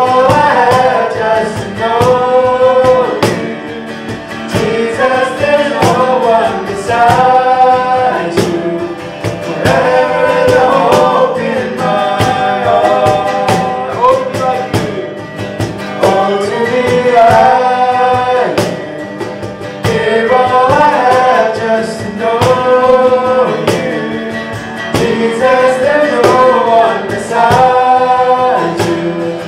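A small worship band playing a slow contemporary worship song: male and female voices sing phrase by phrase, with short breaths between lines, over a strummed acoustic guitar and steady cajon hits.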